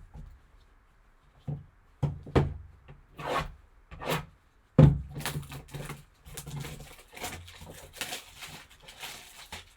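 Hands handling a sealed cardboard box and its packaging: a few knocks and taps, then a stretch of rubbing and scraping.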